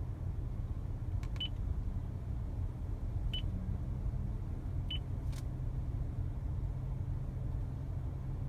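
Toyota Vellfire head unit's touchscreen giving three short, high confirmation beeps, a second and a half to two seconds apart, as its on-screen buttons are tapped. Under them is a steady low rumble of the vehicle heard from inside the cabin.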